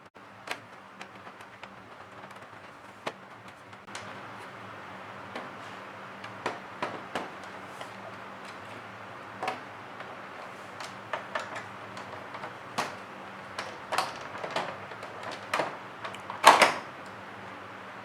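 Irregular small clicks and knocks of a PS4 Pro's plastic and metal parts being handled during disassembly and cleaning, with a louder short clatter near the end, over a faint steady hum.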